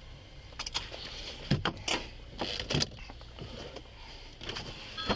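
Knocks, clunks and rustling from someone moving about inside a police patrol car, heard close on a body-worn camera over a low steady hum. A louder clunk comes near the end.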